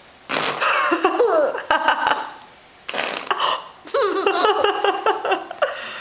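A young child blowing a mouth fart noise twice, about a third of a second in and again near the middle, each followed by high-pitched laughter.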